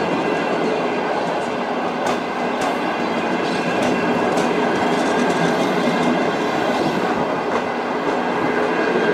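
Passenger coaches rolling past close by: a steady noise of steel wheels on rail, with scattered clicks as the wheels cross rail joints.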